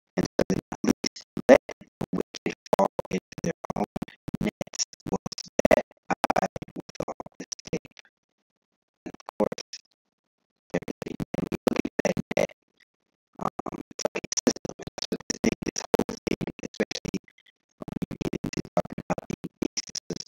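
Music with a dense, rapid clicking texture. It drops out briefly four times.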